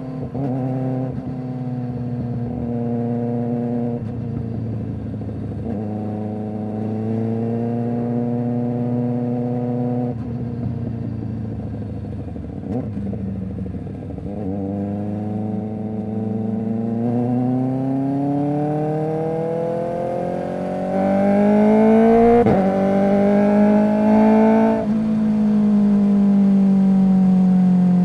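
Kawasaki ZX-4RR's inline-four running through an SC Project exhaust, heard from the rider's seat while riding. The engine note holds and steps between gears in the first half, then climbs steadily in pitch through the second half with a sharp break partway up, before dropping off and winding down near the end.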